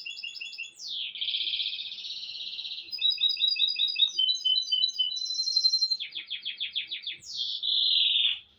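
A small songbird singing: a string of quick trills, each a different note repeated many times, with buzzy stretches in between. It stops abruptly near the end.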